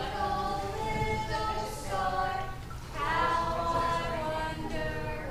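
A group of adults singing a song together unaccompanied, in long held notes.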